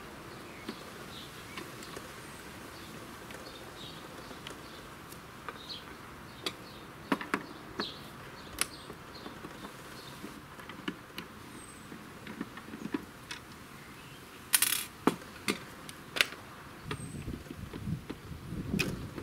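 Screws being undone from the plastic housing of a cordless lawnmower battery charger with a hand screwdriver: scattered small clicks and taps of the driver and plastic, with a louder clatter about 14.5 seconds in.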